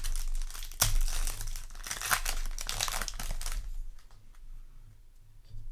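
A foil Yu-Gi-Oh! booster pack wrapper being crinkled and torn open, a dense crackling with sharp rips that dies down after about three and a half seconds.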